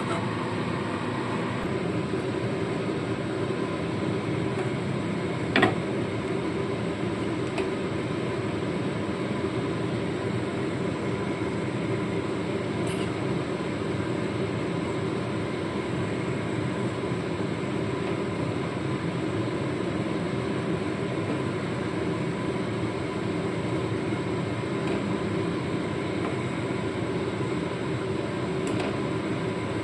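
A steady, even machine-like hum with a faint whine in it, and one short click about five and a half seconds in.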